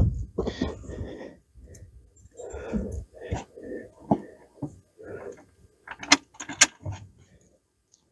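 Hand work on a plastic A-arm guard: a knock at the start, then irregular rustling and handling noises, with a few sharp metal clicks from the bolts and washers about four seconds in and again near six and seven seconds.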